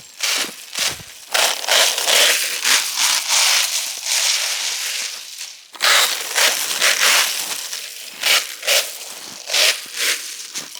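Slushy, heavy spring snow crunching in irregular bursts, with two longer spells of dense crunching in the first part and shorter crunches near the end.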